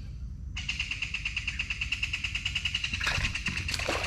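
A high-pitched, rapidly pulsing animal trill, dropping out for about half a second at the start and then going on steadily, over a low rumble, with a few louder clicks and rustles near the end.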